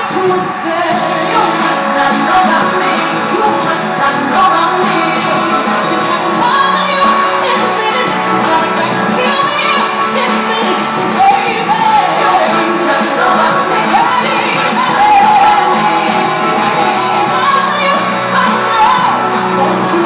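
Live pop concert heard from the audience: a singer and band performing, with the crowd singing and shouting along. The sound is loud and has little deep bass.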